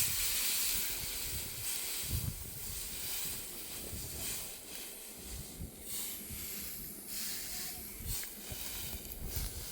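Continuous rustling hiss with irregular soft low thumps.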